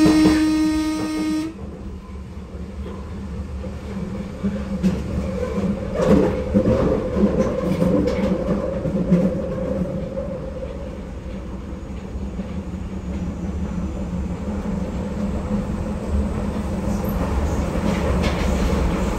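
Berlin U-Bahn F-type train with camshaft (Schaltwerk) control running on the U8, heard from the driver's cab: a steady rumble of motors and wheels with scattered clicks from the rails. It opens with a steady pitched signal tone that stops after about a second and a half, and a steadier hum joins the rumble about six seconds in.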